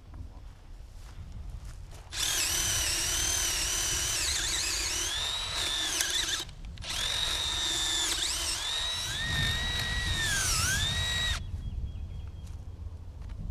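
Electric drill motor whining in two runs of about four seconds each, with a short stop between them. Its pitch wavers and sags briefly near the end as it takes load.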